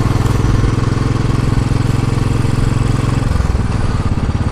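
Royal Enfield Classic 500's single-cylinder four-stroke engine and exhaust running under way, an even, rapid beat of firing pulses. The note changes about three seconds in.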